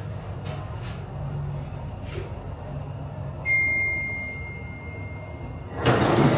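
A single electronic beep, one steady high tone held for about two and a half seconds, sounds about halfway through over a low steady hum. Near the end a sudden louder rushing noise starts.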